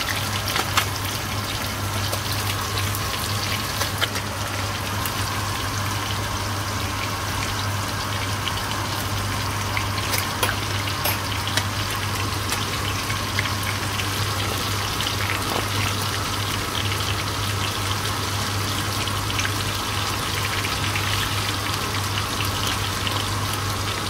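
Whole fish and onion pieces sizzling and crackling steadily in hot oil in a frying pan, under a steady low hum.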